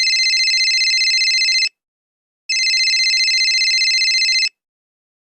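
Telephone ringing twice, each ring a rapid trilling tone about two seconds long with a short pause between.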